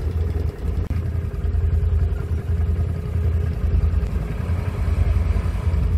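Can-Am ATV engine idling steadily, a low rumble.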